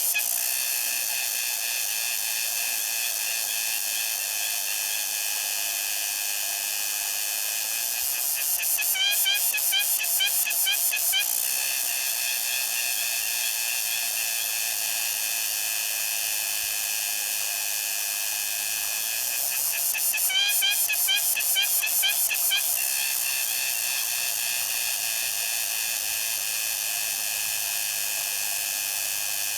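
Cicada singing: a steady, high-pitched buzzing drone that twice swells into a louder, rapidly pulsing phrase lasting two to three seconds, about a third of the way in and again around two thirds in.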